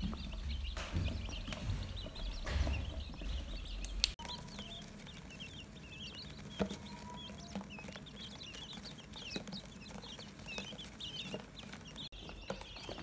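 A brood of newly hatched quail chicks peeping, many quick high chirps overlapping without a break. There are a few low bumps and rumbles over the first few seconds.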